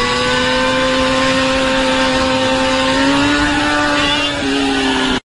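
Small motor scooter's engine running at steady high revs as the scooter rides along, the pitch holding nearly level with a small drop near the end. The sound cuts off suddenly just before the end.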